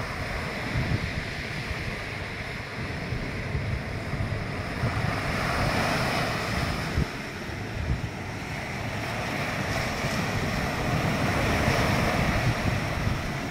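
Ocean surf breaking and washing up a sand beach, with wind buffeting the microphone. The wash swells up about halfway through and again near the end.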